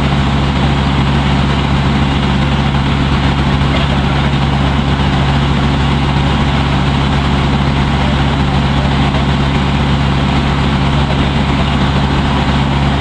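Water taxi's engine running at a steady, unchanging speed, a loud low hum.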